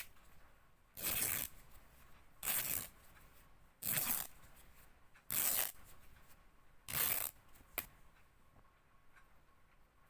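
Fabric being ripped by hand in five short tears, each about half a second long and spaced about a second and a half apart, followed by a few seconds of stillness.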